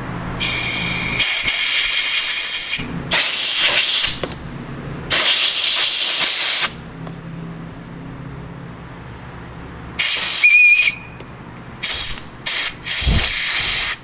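Compressed-air blow gun hissing in about seven short blasts, some over a second long, blowing rust out of a corroded spark plug cap.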